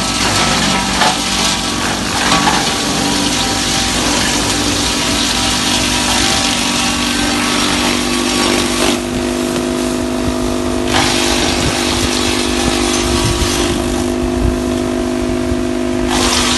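Engine-driven machinery running steadily with a loud rushing noise over it. Twice, for about two seconds each, the rushing drops away and leaves the engine's steady hum.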